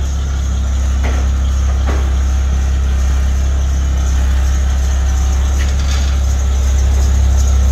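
1970 Chevrolet step van's engine idling with a steady deep exhaust drone, slightly louder near the end.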